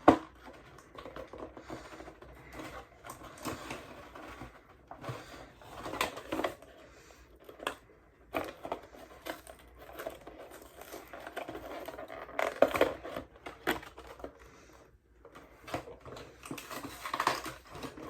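Lightsaber packaging being handled and pried at: irregular clicks, taps and scraping rustles, with louder bursts about six, twelve and seventeen seconds in.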